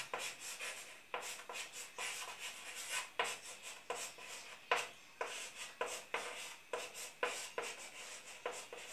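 Chalk writing on a blackboard: a run of short strokes and taps as a line of words is written.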